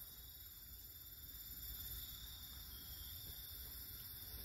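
Faint, steady, high-pitched chirring of insects in the background, with no distinct sound in front of it.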